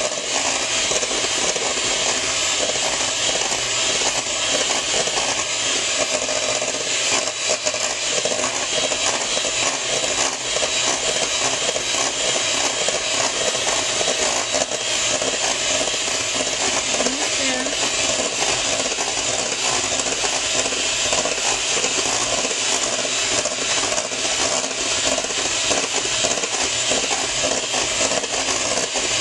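Electric hand mixer running steadily, its beaters whipping egg whites in a stainless steel bowl toward stiff peaks.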